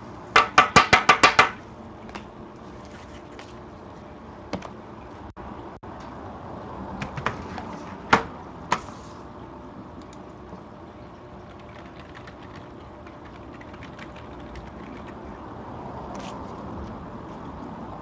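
Computer keyboard and mouse handled on a tabletop: a quick run of about eight loud, sharp clacks in the first second and a half, then scattered lighter clicks and taps.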